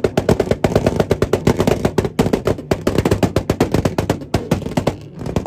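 Car engine held on a two-step launch limiter, its exhaust firing a rapid string of loud pops and bangs, several a second, that cuts off suddenly near the end.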